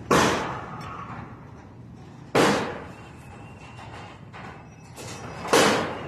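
Three loud bangs at uneven spacing, one at the start, one about two and a half seconds in and one near the end, each sharp at the onset and dying away over about half a second.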